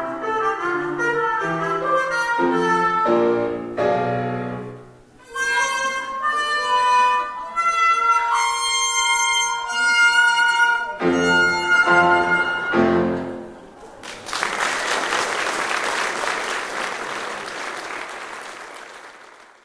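Trumpet and trombone playing a duet with piano, closing on a few short final chords. Then an audience applauding, fading away.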